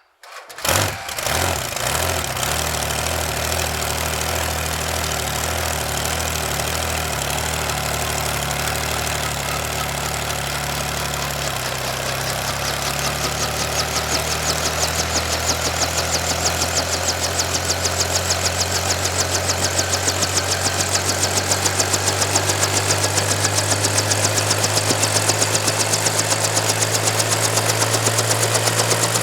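Helicopter starting up: the engine cuts in suddenly and runs with a steady low drone that shifts pitch about twelve seconds in. A rhythmic rotor beat grows in from about fourteen seconds and then holds steady.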